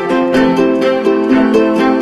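Background music: a light tune of plucked string notes in a steady, even rhythm.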